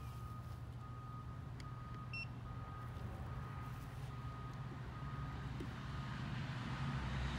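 A low, steady vehicle rumble with a faint high reversing beep repeating at an even pace; the rumble grows louder toward the end.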